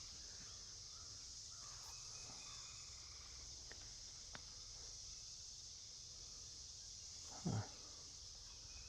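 Chorus of insects, a steady high-pitched buzz, fairly quiet, with one short low sound about seven and a half seconds in.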